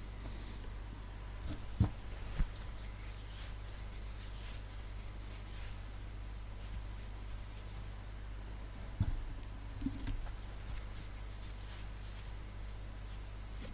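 Steady low hum under room tone, broken by a few short clicks and knocks, two close together about two seconds in and two more around nine to ten seconds in.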